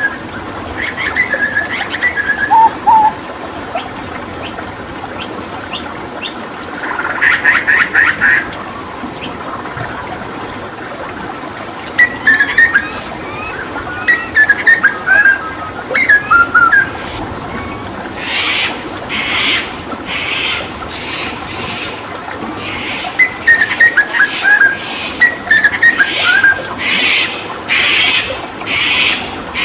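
Hooded butcherbird (Cracticus cassicus) singing in bursts of quick, chirping phrases, with a harsh buzzy burst about a quarter of the way in. From about two-thirds of the way through it breaks into a run of repeated harsh, rasping notes. A steady hiss of running water lies underneath.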